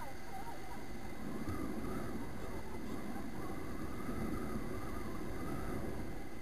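Steady engine and road noise from a motor scooter riding along a street, picked up by a camera mounted on the scooter.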